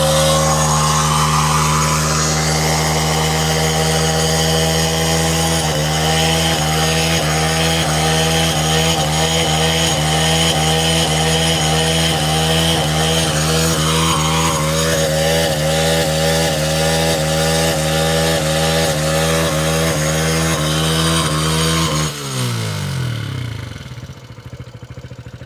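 Motorcycle engine held at high, steady revs during a burnout, the rear tyre spinning against the ground and wearing through. From about six seconds in the engine note wavers rhythmically, and near the end the revs drop away.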